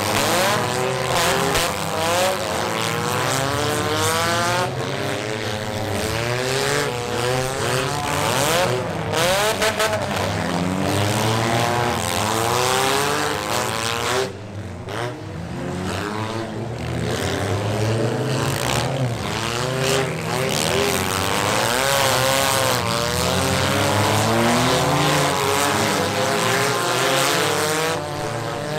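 Several demolition derby cars' engines revving up and down at once, with scattered bangs of cars knocking into each other; the engine noise eases briefly about halfway through.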